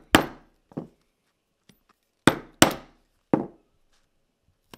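A mallet striking a pricking iron through leather to punch stitching holes: five sharp knocks at uneven spacing, two of them in quick succession.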